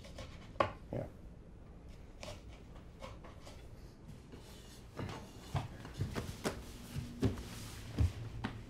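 Scattered soft knocks and clicks of footsteps on a wooden floor and objects being handled in a quiet room. The knocks come thicker and louder in the last few seconds.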